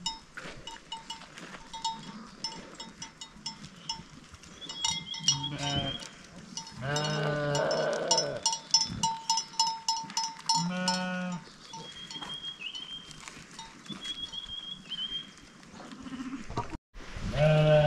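Sheep bleating several times, one long call in the middle, over the steady jingling of small bells worn by the flock.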